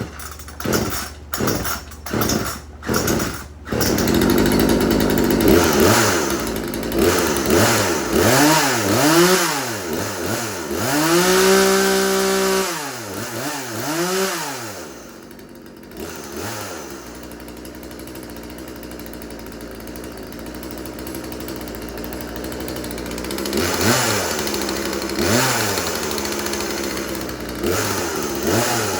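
Craftsman 36cc two-stroke chainsaw, a Poulan clone, being pull-started with a run of quick pulls and catching about four seconds in. It is revved up and down several times and held at high speed briefly, then drops back to idle, with a few short throttle blips near the end.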